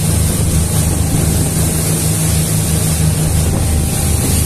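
Motorboat running at steady speed: a constant low engine drone under the rush of the wake and wind on the microphone.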